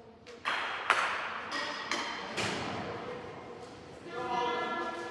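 A ground golf club strikes the ball with one sharp crack about a second in, followed by a few lighter taps. A person's voice calls out near the end.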